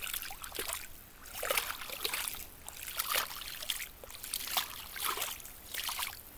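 Meltwater trickling and gurgling as it wells up from under snow and ice, in irregular small splashy bursts.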